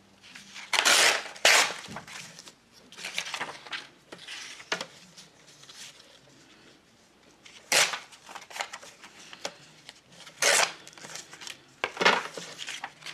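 Paper torn along a clear plastic tear-guide ruler in several short rips, with paper rustling and handling between them.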